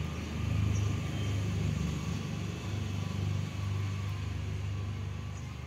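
A low, uneven rumble.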